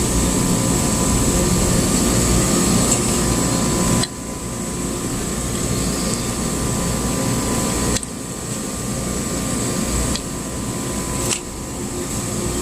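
Steady background hum of running machinery, like an air-conditioner or fan, with a short click about three-quarters of the way through.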